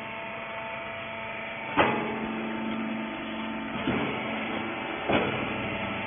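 Small rag baler running with a steady motor hum, with three sharp mechanical clanks about two, four and five seconds in, the first the loudest.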